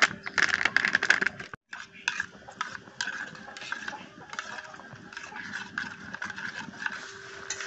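A plastic milk-powder packet crinkling as it is shaken out over a bowl. After a short break, a steel spoon stirs the milk powder into water in a steel bowl, scraping and clinking against the bowl, with a faint steady hum behind.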